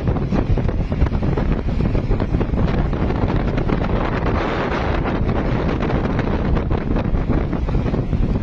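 Wind buffeting the microphone on the roof of a moving vehicle: a steady, loud rushing noise.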